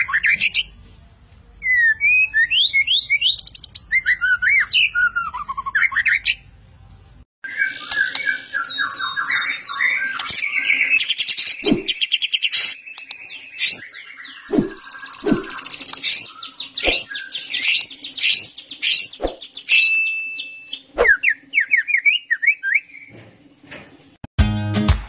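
White-rumped shama (murai batu) singing, worked up and in full voice: rapid runs of varied whistles and trills mixed with sharp clicking notes. The song breaks off about seven seconds in and picks up again, and strummed guitar music comes in just before the end.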